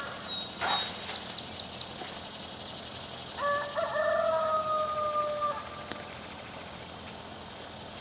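A rooster crowing once, a single drawn-out call of about two seconds in the middle that sags slightly in pitch at the end. Under it is a steady high drone of insects.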